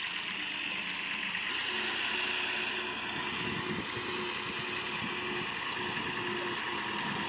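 Farm tractor's diesel engine running steadily as the tractor drives slowly.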